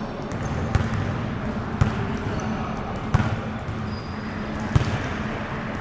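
Four sharp thuds, one every second or so, over a steady low hum and background noise, with a brief high squeak about two-thirds of the way through.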